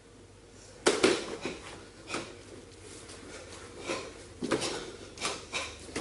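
A string of sharp snaps and knocks from karate kata being performed: uniforms snapping and feet striking a wooden floor. The loudest comes about a second in, and shorter ones follow more and more often toward the end.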